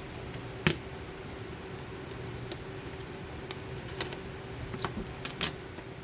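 Scattered sharp clicks and taps from handling computer parts and their packaging, over a steady low electrical or fan hum.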